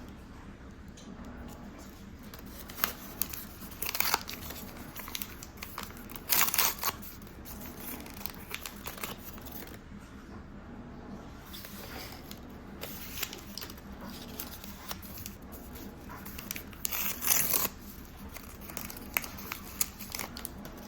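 Small plastic mystery-toy packages being opened by hand: packaging crinkling and tearing, with scattered clicks and handling knocks. Two longer rips stand out, about six seconds in and again about seventeen seconds in.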